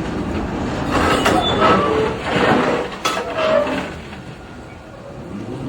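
Ore train being loaded: a steady heavy rumble with a couple of sharp metallic knocks and brief squeals, easing off near the end.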